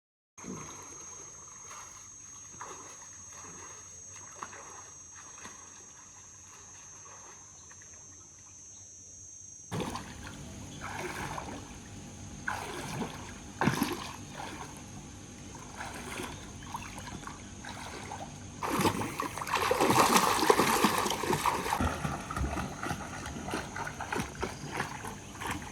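Water splashing and trickling, with uneven splashes. It is quieter at first, with a steady high whine; a cut about ten seconds in leads to a louder stretch of splashes that peaks near the end.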